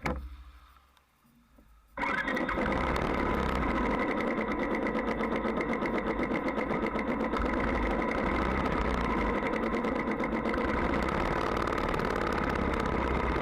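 Motorcycle engine, a Royal Enfield Bullet's single-cylinder, comes in abruptly about two seconds in and then runs steadily at idle.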